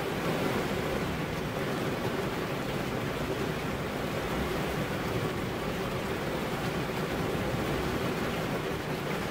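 Heavy rain falling, a constant even hiss with no thunder or single drops standing out.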